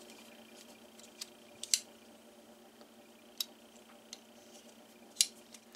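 A handful of sharp, spread-out metal clicks from a Leatherman Wave multitool being handled as its blades and liner lock are worked, over faint room tone.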